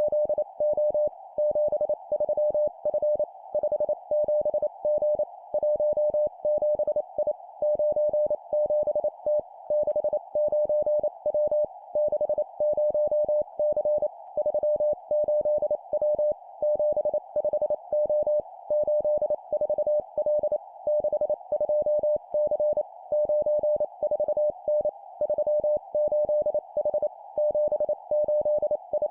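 Morse code practice signal: a single steady beep tone keyed on and off in rapid dots and dashes at 25 words per minute, sending three-character groups of two digits and a letter. A faint hiss continues between the beeps.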